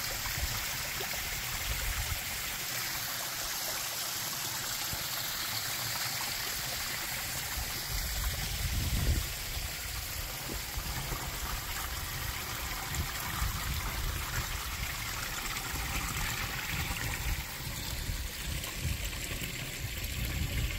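A small rocky creek trickling and burbling steadily over and between boulders, with a low rumble swelling now and then, loudest about eight or nine seconds in.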